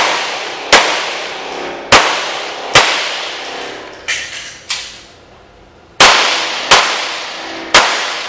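About nine handgun shots fired roughly a second apart, with two fainter shots near the middle. Each shot rings on in a long echo off the walls of an indoor range.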